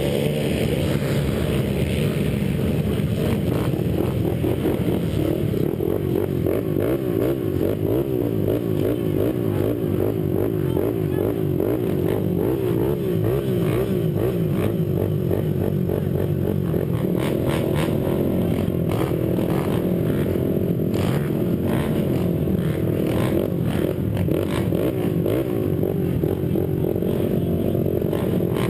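Honda 300 quad's engine running at the starting gate, the revs wavering up and down as the rider holds and blips the throttle. Clicks and clatter join in the second half.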